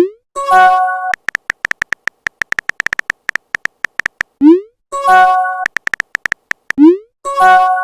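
Phone messaging sound effects: runs of rapid keyboard tap clicks, each followed by a short rising swoop and a bright multi-note message chime. The sequence comes three times, and the last chime rings out at the end.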